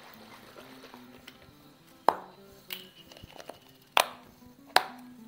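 Plastic cap and seal of a cardboard chicken-broth carton being opened: three sharp snaps and a softer click, over soft background music.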